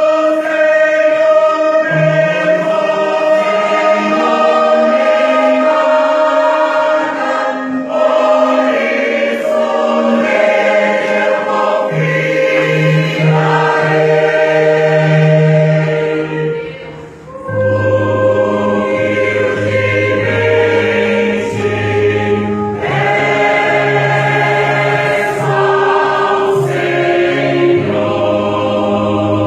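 Choir singing in harmony in long, sustained phrases, with a short pause between phrases about halfway through.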